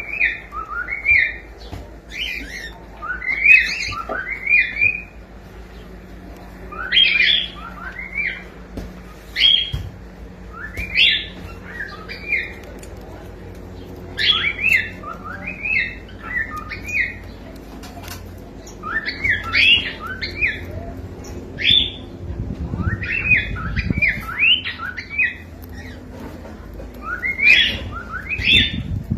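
Cockatiel chirping and whistling in short runs of quick rising notes, a run every second or two.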